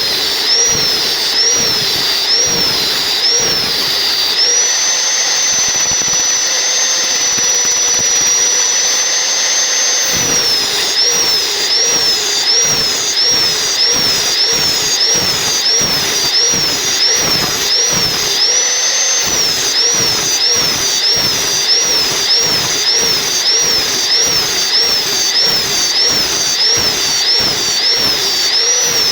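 Large-blade power saw cutting a log, running continuously with a high whine. The pitch holds steady for a few seconds, then from about a third of the way in it dips and recovers regularly, about once or twice a second, as the blade works through the wood.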